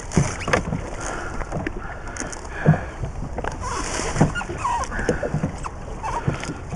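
Landing net with two fish being handled at the side of an inflatable boat: irregular knocks and rustles over a steady low rumble of water and wind.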